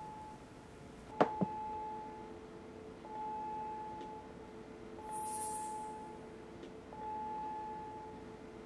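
An electronic beep of one steady pitch, repeating about once every two seconds over a steady lower hum, with two sharp clicks about a second in.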